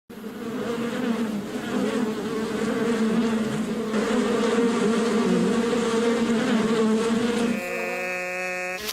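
A mass of honey bees buzzing in flight around their hives on their early-spring cleansing flight, a loud, wavering hum. Near the end it gives way to a steadier, even-pitched buzz.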